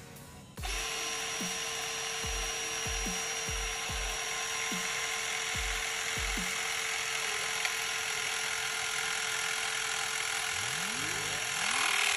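Milwaukee M18 HCCT109/42 cordless hydraulic crimper running its pump motor, driving the ram and cutting die into a thick power cable. It starts about half a second in as a steady whine and grows louder near the end as it works into the cable.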